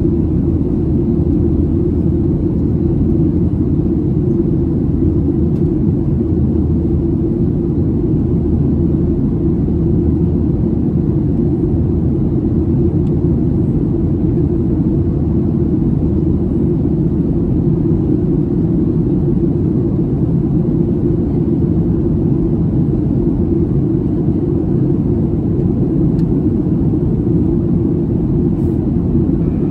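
Steady low rumble inside the cabin of a Boeing 737-800 in flight, from its CFM56-7B26 turbofan engines and the airflow over the fuselage.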